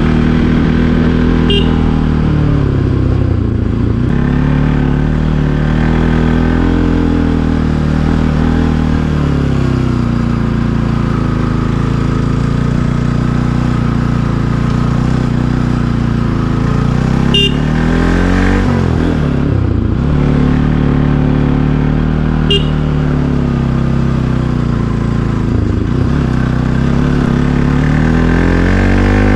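Bajaj Pulsar NS200's single-cylinder engine ridden hard, its revs climbing and falling several times as the throttle is opened and rolled off through the bends, climbing again near the end. Three brief sharp clicks are heard along the way.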